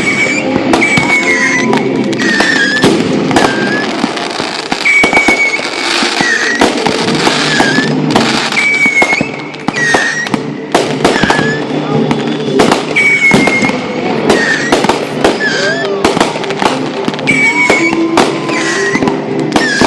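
Fireworks going off one after another, sharp bangs and crackles throughout, with music playing underneath.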